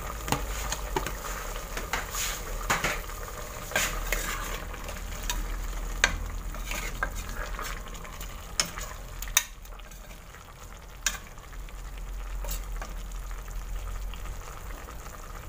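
A spatula stirring beef and onion slices in sauce in a metal pressure cooker pot. Repeated clicks and scrapes of the spatula against the pot sound over a steady sizzle from the cooking sauce.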